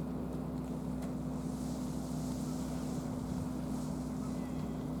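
Steady outdoor background noise: a constant low hum with wind on the microphone.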